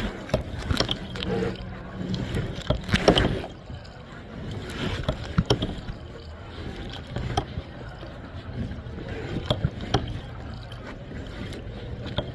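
Kayak paddling: paddle blades splashing into the water with irregular knocks of the paddle against the kayak, the loudest splash and knock about three seconds in.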